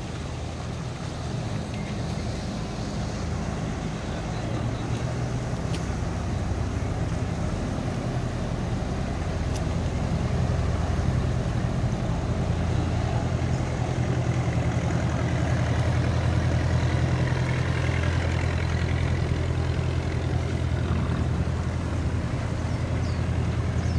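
Inboard engines of small wooden harbour ferry boats chugging steadily as they pass close by, growing louder about ten seconds in.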